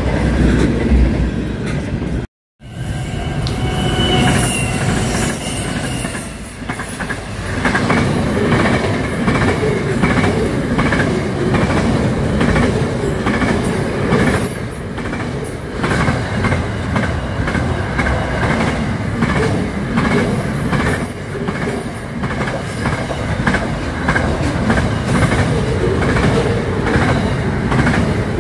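Double-stack container freight train rolling past close by: a steady rumble of wagons, wheels clacking over the rail, with some high wheel squeal. There is a brief drop-out to silence about two and a half seconds in.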